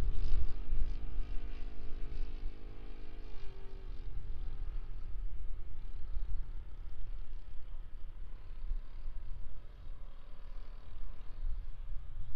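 Propeller drone of a giant-scale RC P-51 Mustang model flying high overhead: a steady pitched note that drops in pitch about three and a half seconds in and then fades into a low rumble.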